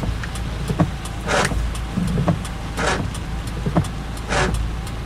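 Car windshield wipers sweeping in rain, a swish about every second and a half, with small clicks between, over the steady low hum of the car.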